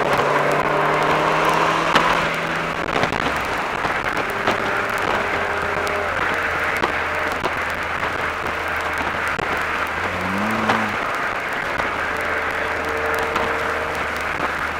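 Mercedes-Benz SLK 230 Kompressor's supercharged 2.3-litre four-cylinder engine pulling on the road, heard onboard over steady tyre and wind noise. The engine note falls about two to three seconds in and rises briefly about ten seconds in.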